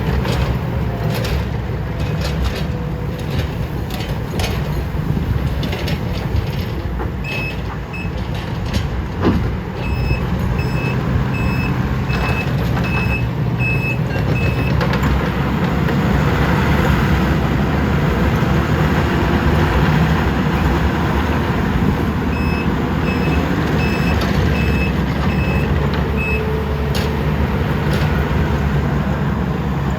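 Diesel engines of a Takeuchi TL12 skid steer and a CAT 308E2 excavator running under load, with scattered clanks and knocks. A reversing alarm beeps at an even pace in two spells of several seconds each, one near the middle and one later on.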